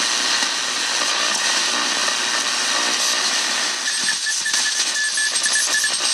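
Shortwave static from an RCA AR-77 communications receiver between stations: a steady, loud hiss, with faint whistling tones breaking through in the second half.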